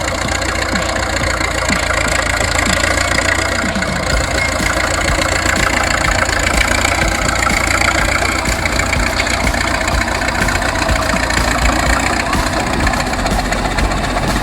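Engine of a large machine running steadily, with a heavy low rumble.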